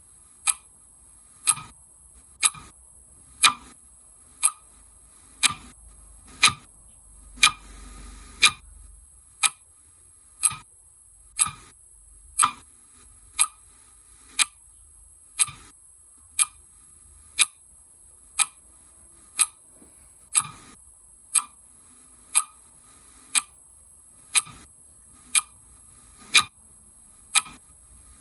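Clock ticking steadily, about one tick a second, over a faint steady high hiss.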